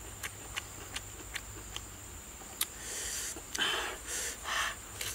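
A person eating: short wet mouth clicks of chewing and lip smacking at a steady pace, then three short breathy noises about three seconds in.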